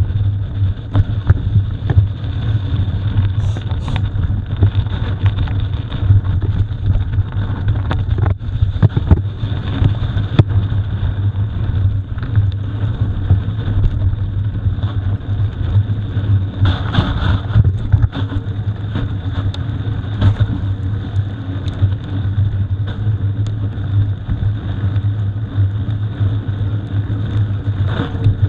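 Mountain bike being ridden over rough ground: a steady low rumble with a constant patter of small knocks and rattles.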